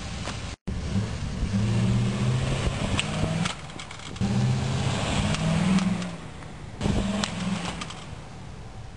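A motor vehicle's engine running in three stretches of a steady low hum, with scattered clicks. The sound cuts out briefly about half a second in.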